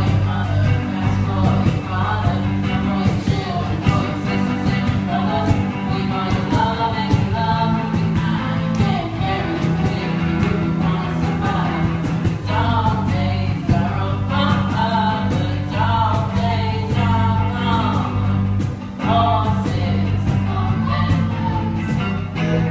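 Small rock band playing live: electric guitar, bass guitar and cajón, with a sung lead vocal over a steady beat.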